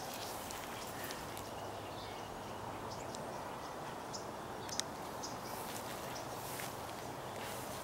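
Quiet outdoor backyard ambience: a steady background hiss with a few faint, short ticks and rustles, such as grass being brushed.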